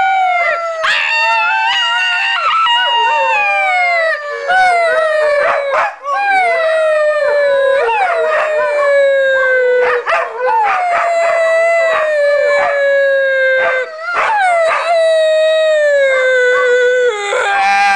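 Dog howling: a run of long howls, each about two to four seconds long and sliding slowly down in pitch, with short breaks between them.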